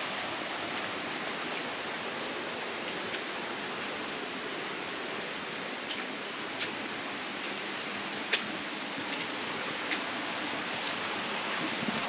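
Steady even hiss of water, with a few sharp ticks scattered through it, the clearest a little past the middle.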